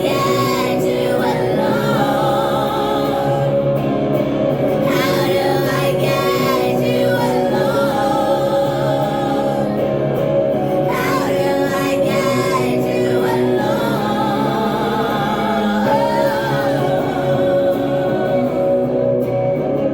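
Live pop-rock song in a stripped-down arrangement: sustained instrumental chords under phrases of a woman singing.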